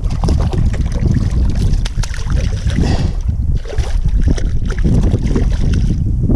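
Wind buffeting the microphone, a steady low rumble, with water noise over it.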